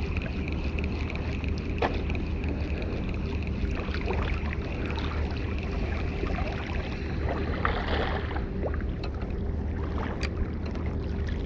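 Steady wind noise rumbling on the microphone, with water lapping at the shore and a few short clicks, about two seconds in and again near the end.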